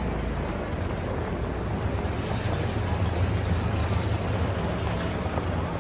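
Steady city traffic ambience: a continuous low rumble of engines under an even hiss, the rumble growing a little stronger about two seconds in.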